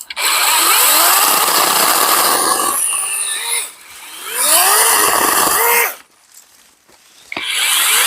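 Battery-powered mini chainsaw cutting through branches in three runs, its electric motor whining up in pitch as it spins up at each start. There is a pause about six seconds in, and the third run starts near the end.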